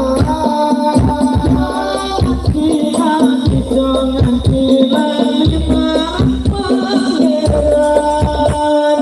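Sholawat (Islamic devotional music) played by a hadrah-style group through a large outdoor PA sound system: a sung or played melody over a steady low drone and quick, uneven hand-drum strikes.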